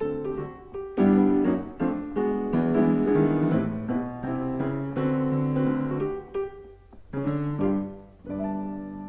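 Solo piano playing a melody over chords, with brief breaks in the phrase, then a held chord ringing out near the end.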